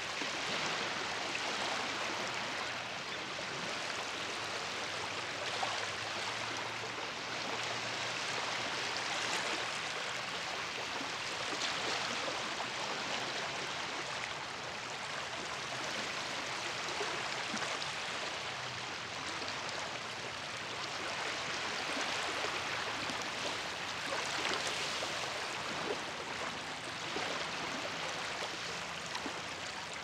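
Small waves lapping at a lake shore: a steady wash of water that swells and eases every few seconds.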